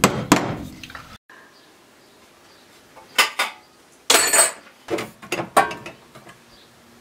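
A hammer drives a cable staple over electrical cable with one last strike at the start. Then the sheet-metal cover of an Eaton breaker panel is handled, clattering with a metallic ring about four seconds in, and knocks several times as it is fitted onto the panel.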